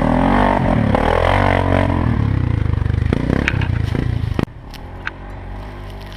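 A 4x4 ATV's engine running, its pitch wavering with changing revs for the first couple of seconds and then holding steady. About four and a half seconds in the sound drops off suddenly to a much quieter low rumble, with a few sharp clicks and rattles.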